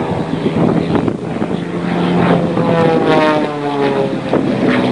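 Zlin Z-50 aerobatic plane's piston engine and propeller flying past, the engine note sliding down in pitch about halfway through.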